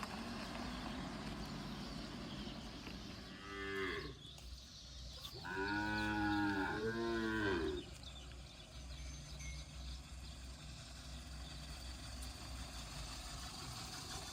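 A cow mooing: a short moo about three and a half seconds in, then a longer, louder moo around six to eight seconds.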